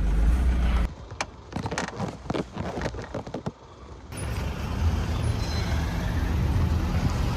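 A motor vehicle's engine running with a steady low rumble. About a second in it drops away to a quieter stretch of scattered clicks and knocks, and near the middle the engine rumble comes back.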